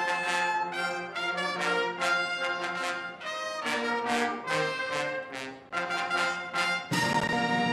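Brass band music: trumpets and trombones playing a melody of short separate notes, then a long held chord near the end.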